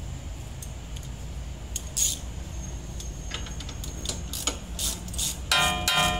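Ratchet wrench clicking in irregular runs as a nut on a Toyota Hiace's front suspension is turned. The clicks start about two seconds in and come more often after that, and a ringing pitched sound comes in near the end.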